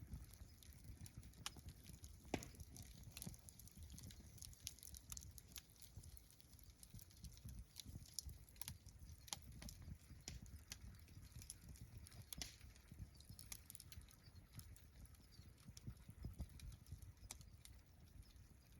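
Wood campfire crackling faintly, with irregular sharp pops scattered throughout over a soft low rumble.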